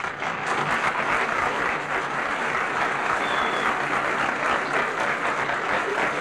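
A crowd applauding: steady, continuous clapping.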